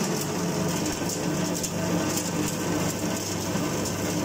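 Hookah-tobacco chopping machine running steadily: a constant motor hum under a hiss of chopped tobacco flying against its mesh screen.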